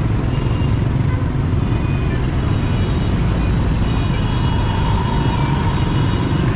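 Yamaha 125 cc scooter riding slowly through dense motorbike traffic: a steady low rumble of its engine and the surrounding motorbikes, with a few faint high tones partway through.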